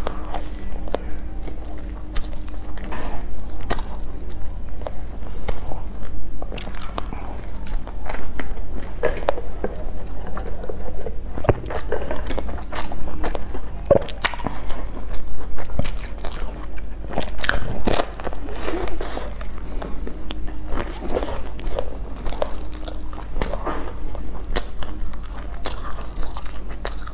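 Close-miked eating sounds: a person biting and chewing soft food, with many short sharp mouth clicks and squelches.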